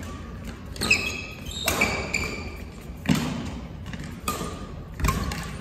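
Badminton rally: rackets hit the shuttlecock about once a second with sharp smacks that echo in the hall, and short high squeaks come from shoes on the court floor.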